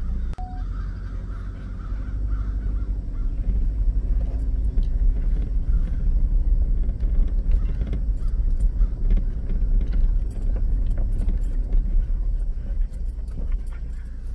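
Low rumble of a Ford Ranger pickup driving slowly over a rough, rocky dirt trail, heard from inside the cab, with scattered clicks and rattles from the bumpy ride that grow busier after a few seconds.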